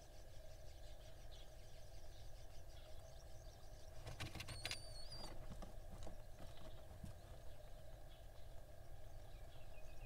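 Barn owl chicks shifting in a wooden nest box, giving a few faint knocks and scuffs about four seconds in. A brief high wavering whistle follows, over a steady low background rumble.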